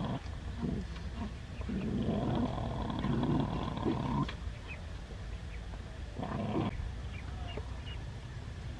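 Dogs growling over food while eating from a shared tray: one long, wavering growl of a couple of seconds, then a shorter growl later on.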